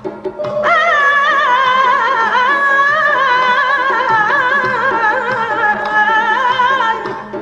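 A woman singing one long held note in an Azerbaijani song, the pitch wavering and ornamented, starting about a second in and falling away just before the end.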